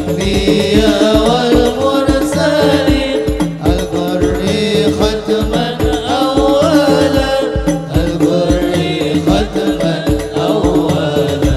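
A hadroh banjari ensemble performing sholawat: male voices singing a melismatic Arabic melody through microphones over frame drums, with a deep bass drum keeping a steady beat.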